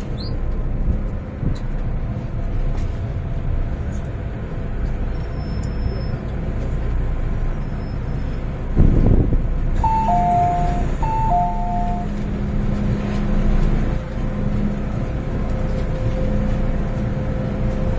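MTR M-Train rumbling along on the Island Line. About nine seconds in there is a short heavier rush, then a two-note falling chime sounds twice. A steady motor whine then comes up under the running noise.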